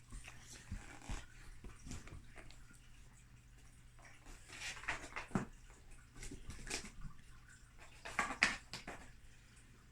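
Pets rummaging about: scattered scratches, rustles and short noisy bursts, loudest around five and eight and a half seconds in.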